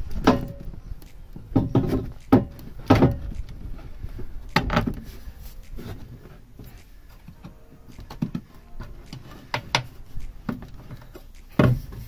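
Exhaust carrier and mounting hardware being handled and knocked against the car's underbody, giving a run of clunks and knocks over the first few seconds, then lighter scattered clicks.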